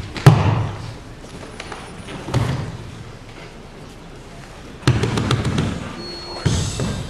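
A body hitting a foam martial-arts mat as a partner is thrown down and pinned. The loudest thud comes about a third of a second in and another near two and a half seconds, then a run of sharp slaps around five seconds and one more thud near the end.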